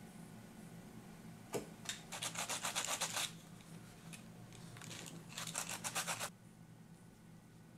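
Sanding stick rubbed fast back and forth along the trimmed edge of woven vegetable-tanned leather, in two short bursts of about ten strokes a second. A single click comes a little before the first burst.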